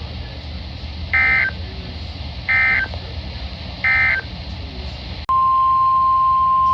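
Three short, identical bursts of EAS digital data, a rapid buzzing screech about 1.4 s apart, that mark the end of a NOAA Weather Radio alert message. About five seconds in, a loud, steady, single-pitched NOAA Weather Radio alert tone starts, introducing a flash flood warning.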